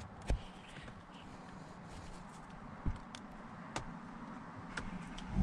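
A screwdriver prying at the plastic clip tabs of a 2003–2008 Honda Pilot rear air-vent housing, giving a few sharp plastic clicks as the tabs let go. The loudest click comes about a third of a second in.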